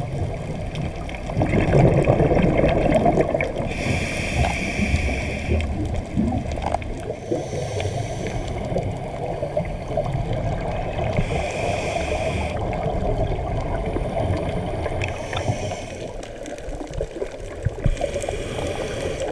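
Underwater sound from a dive camera: a steady low rush of water, with a short hiss every few seconds, typical of a scuba diver breathing through a regulator and letting out bubbles.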